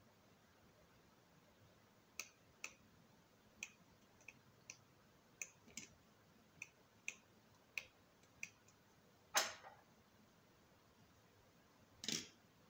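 Light, sharp clicks of small plastic and metal phone parts, a dozen or so scattered irregularly, as an Oukitel WP6 rugged phone is taken apart by hand and its camera bracket unclipped. Two louder, longer clatters come about nine seconds in and just before the end.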